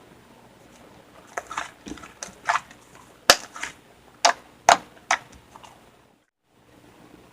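Slime being squeezed and pressed by hand, giving a run of sharp pops and clicks from trapped air. The loudest two pops come a little past the middle.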